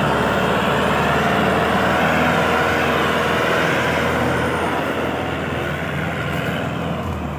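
Sonalika DI 750 diesel tractor engine running steadily under load while pulling a trolley, a little fainter in the last couple of seconds. The owner says the tractor is bogging down badly and has no power.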